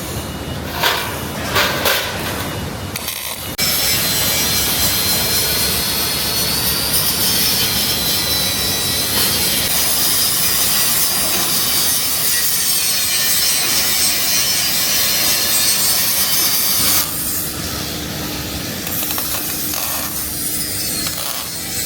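A power tool working metal: a few sharp knocks, then about four seconds in a loud, steady hiss with a high wavering whine that cuts off suddenly near the end, leaving a quieter low hum.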